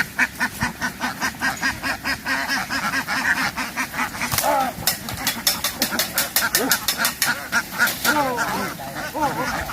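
A flock of domestic ducks quacking loudly together, a dense run of quacks several a second.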